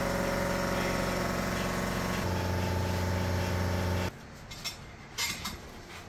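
A machine running with a steady hum, its low tone shifting a little past two seconds in, cuts off abruptly after about four seconds. Then a few sharp metal clicks and knocks come from a tire bar worked against a wheel rim on a tire-changing machine.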